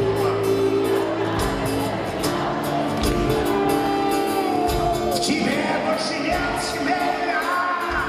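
Live pop-rock band playing: a male lead voice sings over electric guitar and drums, with held and sliding notes and a steady drum beat, recorded from the audience.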